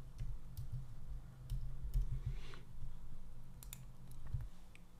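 Computer keyboard keys and mouse buttons clicking: about eight separate, irregularly spaced clicks over a low background hum.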